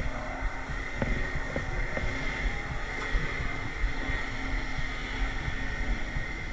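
Underwater ambience picked up by a diver's camera in its housing: a steady low rumble and hiss with a steady hum, and a few soft clicks about a second or two in.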